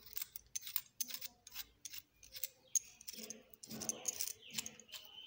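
Parts of a portable gas torch being fitted together by hand: a run of small sharp clicks, taps and scrapes of metal and plastic, with a brief high squeak near the end.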